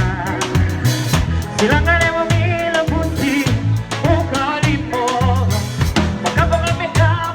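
Live band playing at a sound check: a drum kit keeping a steady beat with snare, rimshots and bass drum, over a bass line and wavering melodic lines.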